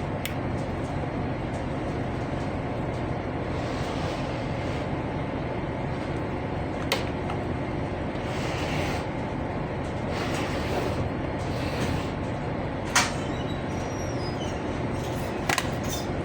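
A steady low rumbling noise, with a few sharp clicks or knocks over it; the loudest comes about thirteen seconds in and a quick double click comes near the end.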